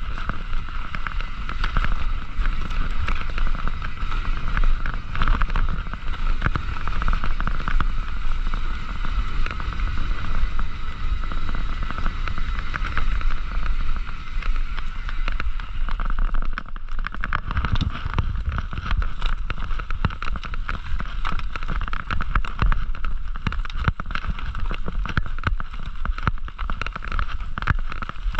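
Mountain bike ridden along an off-road trail: a steady rumble of tyres and wind on the microphone, with rapid, constant rattling and clatter from the bike over rough ground.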